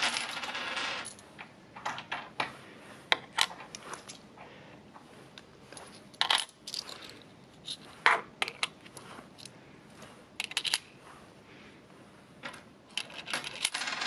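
£2 coins clinking as they are set down one by one onto a solvent-cemented acrylic ledge. A jingle of coins being handled comes at the start, then scattered sharp clicks and short metallic rings, bunched in small groups.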